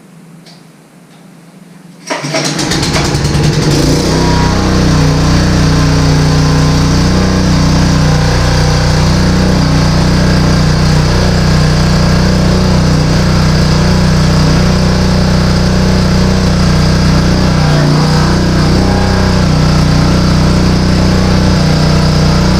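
Small gasoline engine of a portable hydraulic power unit for a Jaws of Life rescue tool starts abruptly about two seconds in, then runs loudly at a steady, even speed.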